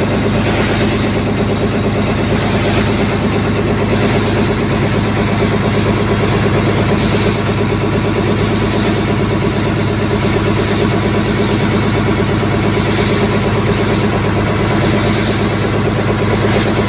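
A boat's engine running steadily at constant speed, heard from on board, a low even drone with no change in pitch.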